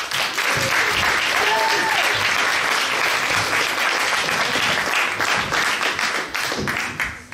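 Audience applauding, with a voice calling out over it; the applause dies away near the end.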